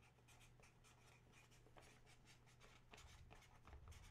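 Near silence: faint room tone with a low steady hum and soft, irregular light scratches.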